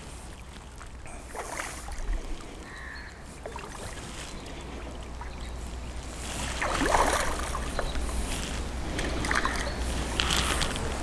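Hooked mirror carp splashing at the surface while it is played to the net, in irregular bursts that are strongest about 7 s in. Low wind rumble on the microphone runs underneath.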